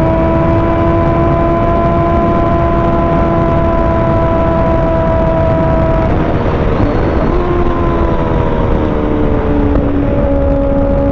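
Kawasaki ZX-6R's inline-four engine running under way, its pitch creeping up steadily, changing abruptly about six seconds in, then easing down and picking up again near the end, over heavy rushing wind noise.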